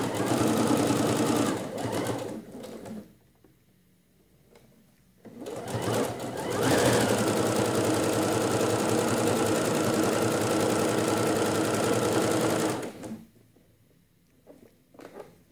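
Computerized sewing machine stitching a seam. There is a short run, a pause of about two seconds, then a steady run of about seven seconds that stops a couple of seconds before the end.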